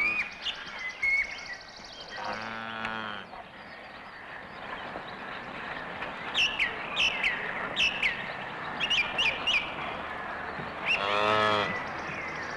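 Bird-like chirping: many short, quick chirps that fall in pitch. A longer, wavering honk-like cry comes about two seconds in and another near the end, over a steady hiss.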